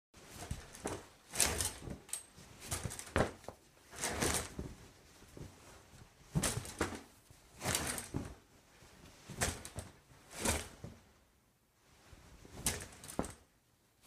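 Shower curtain being pulled aside and a towel rubbing against skin: a string of irregular rustling strokes with short pauses between them.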